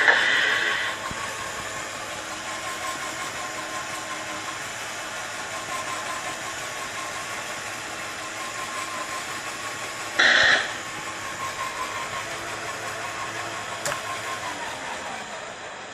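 A model railway turntable's small electric drive runs with a steady hum. About ten seconds in there is a brief loud burst of noise. Near the end the hum's pitch falls away as the turntable slows.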